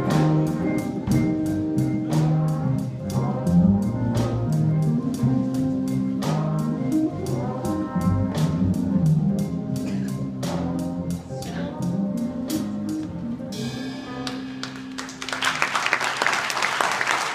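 School jazz big band of saxophones, trumpets, trombones, guitars, keyboards and a drum kit playing a tune over a steady drum beat. The piece ends in the last few seconds and the audience breaks into applause.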